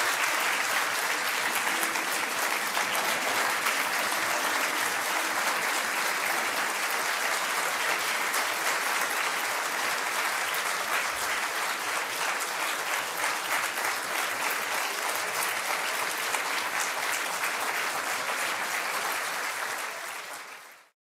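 Audience applauding: a dense, steady clatter of many hands clapping, easing off slightly near the end before cutting off abruptly.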